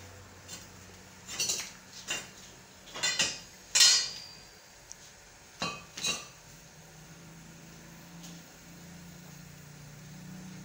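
Metalwork on a welded steel tube chassis: a series of short, sharp metallic clinks and crackles, about eight in all, bunched in the first six seconds with the loudest near four seconds in.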